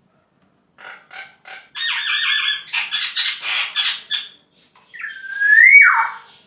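Male black-naped oriole calling: a fast run of harsh, rasping notes, then one loud whistled note that rises and then drops away near the end.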